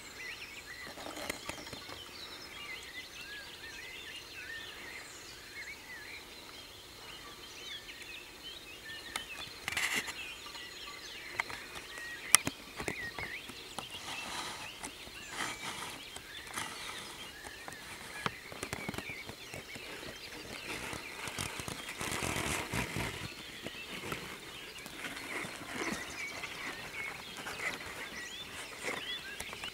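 Outdoor ambience at a feeding site, filled with many short high chirping calls and squeaks, with scattered sharp clicks and crunches and a louder rustling stretch about two-thirds of the way through.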